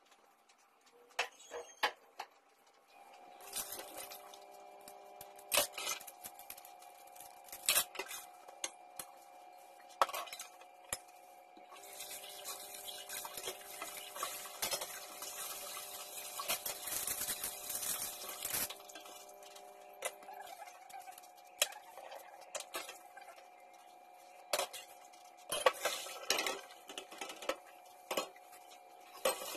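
Dishes and cutlery clinking and knocking against each other in a kitchen sink as they are washed by hand, with a hiss of running tap water for several seconds midway.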